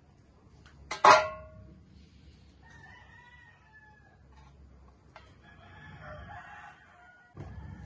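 A chicken calling, with drawn-out crowing calls. A sharp, ringing knock about a second in is the loudest sound.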